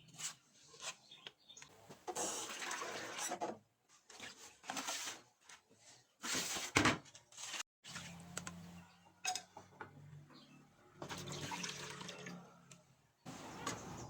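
Water running and splashing in several bursts of a second or two, with clatter between them, as in a kitchen sink.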